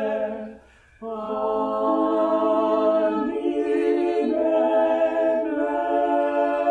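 Unaccompanied choir singing long held chords, breaking off briefly just after the start and coming back in about a second in.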